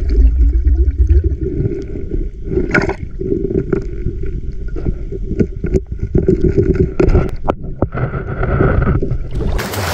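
Muffled underwater river current rushing, heard from a submerged camera, with scattered clicks and knocks as a gold-sniping tool pries and scrapes among gravel and stones on the riverbed.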